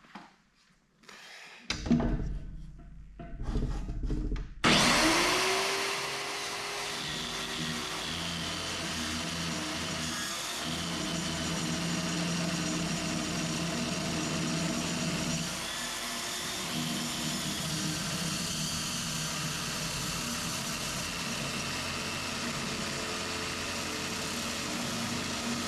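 Handheld metal-cutting circular saw cutting through the flange of a steel beam: a few knocks of handling, then the saw starts about four and a half seconds in, spins up with a brief rising whine and runs steadily under load through the cut.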